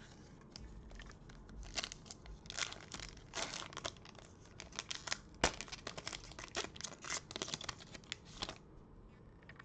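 Foil wrapper of a Panini Prizm basketball trading-card pack crinkled and torn open by gloved hands: a run of short crackles and rips for about eight seconds, the loudest about halfway through.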